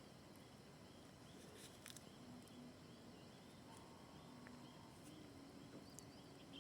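Near silence: faint outdoor ambience with a faint, regular chirping repeating about two or three times a second.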